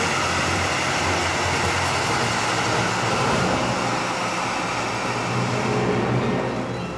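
Pyrotechnic spark fountains (gerbs) burning with a steady, loud rushing hiss that thins out near the end as they burn down.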